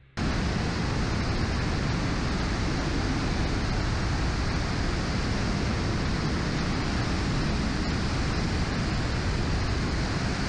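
Lilium 5th Generation Demonstrator eVTOL in flight at about 40 knots, picked up by a camera mounted on the aircraft: a loud, steady rush of airflow and electric ducted fans, with wind buffeting the microphone. It comes in abruptly just after the start.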